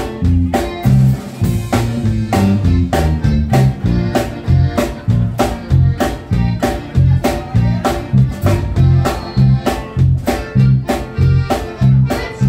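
Live norteño band playing an instrumental passage: button accordion, twelve-string guitar and drum kit on a steady, bouncing beat. A cymbal crash rings about a second in.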